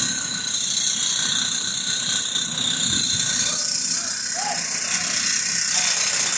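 Jackhammer breaking micro-tunnel concrete, a continuous loud hammering with no pauses.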